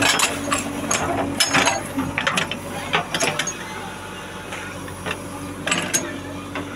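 JCB 3DX backhoe loader digging: repeated metallic clanks and rattles from the backhoe arm and bucket linkage working in the soil, in clusters in the first half and again near the end, over the steady hum of its diesel engine.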